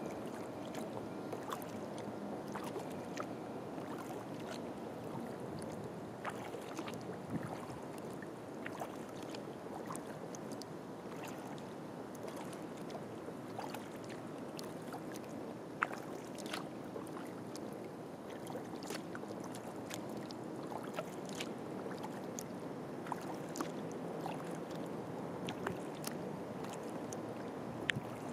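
A kayak being paddled slowly over calm water: a steady wash of water along the hull, with scattered small ticks and splashes throughout.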